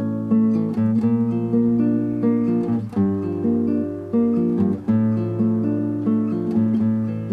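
Background music: acoustic guitar picking a melody in an even rhythm over held bass notes.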